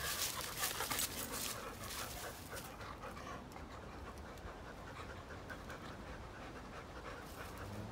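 Black Labradors panting as they tug on a stick between their mouths, paws scuffling in the dry leaves, busiest in the first second or so.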